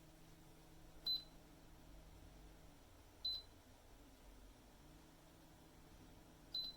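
LACIDOLL ultrasonic humidifier's control panel beeping three times, short high beeps spaced a few seconds apart. A faint low hum runs underneath and drops out for about two seconds in the middle.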